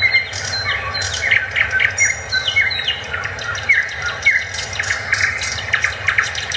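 Small birds chirping in quick succession, many short calls, some sliding down in pitch, over a steady background rush.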